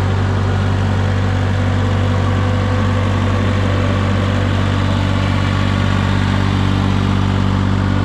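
Mini skid steer engine running at a steady speed, a loud even hum with no change in pitch.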